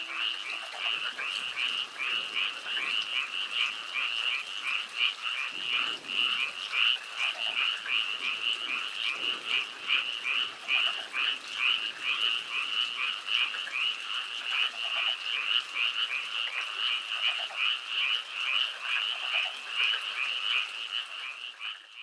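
Frogs croaking: a dense chorus of rapid, high calls repeating without a break.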